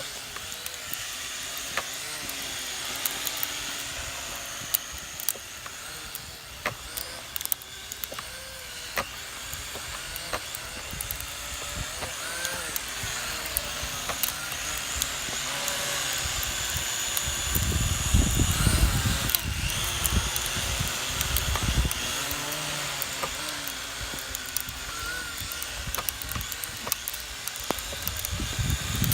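Small quadcopter drone's propellers and motors whining steadily, the pitch wavering up and down as the motors work against the wind. Wind buffets the microphone, with heavy gusts about two-thirds of the way through and again near the end.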